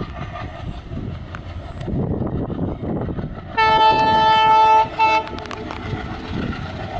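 WDP4 diesel locomotive's horn sounding one long blast about three and a half seconds in, then a short second blast, over the steady noise of the train running.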